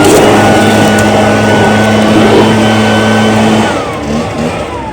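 Echo PB580T backpack leaf blower's two-stroke engine running at full throttle, with a loud rush of air from the fan. The throttle is let off about three-quarters of the way through and the engine pitch falls toward idle.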